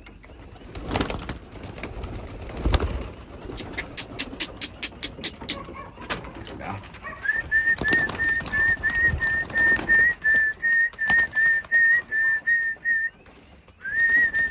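Pigeons cooing and stirring, with a quick run of clicks, then from about halfway a rapid pulsing whistle on one steady pitch, about four notes a second, calling the pigeons in to feed. The whistle stops briefly and starts again near the end.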